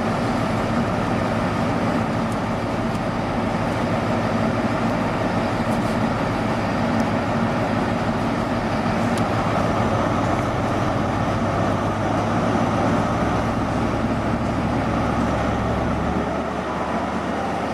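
Class 43 HST power car's diesel engine running close by, a steady drone with its low note shifting about two-thirds of the way through.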